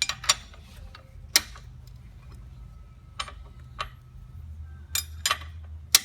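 Sharp, irregular metal clicks and clinks of a wrench working on the rear axle nuts as they are tightened down, about eight in all.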